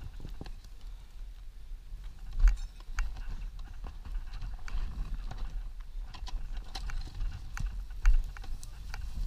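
Scattered knocks, clicks and scuffs as a rider paddles an enduro dirt bike over loose gravel with his feet, over a low rumble on the helmet-camera microphone. Two louder thumps come about two and a half and eight seconds in.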